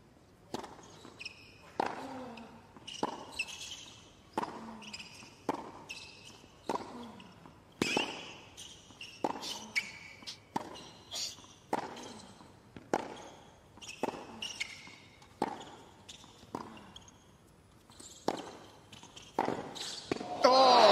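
A long tennis rally: racket strings striking the ball back and forth at an even pace, a sharp hit about every second and a quarter. Several hits come with a player's short grunt.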